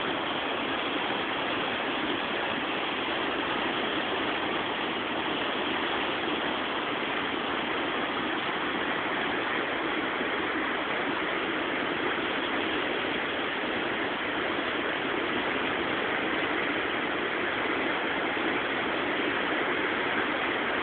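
A river in flood, fast turbulent water churning and rushing in a steady, loud rush.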